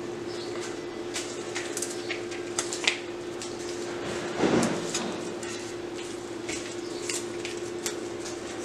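Rose stems and leaves being handled and pressed into wet floral foam: scattered light clicks and rustles, with one louder rustle about four and a half seconds in. A steady low hum runs underneath.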